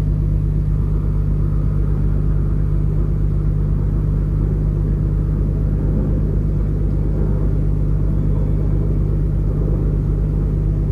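Steady low rumble of a ship's diesel machinery, with a constant deep hum and no change in pace.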